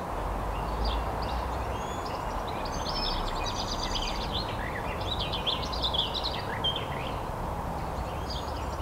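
Several songbirds singing in a garden: short high chirping phrases and quick trills, over a steady low background noise of the open air.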